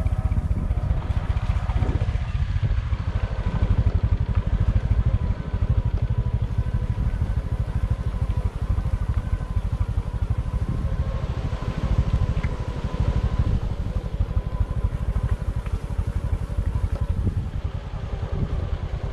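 Vehicle driving: a steady low engine and road rumble with a faint steady whine.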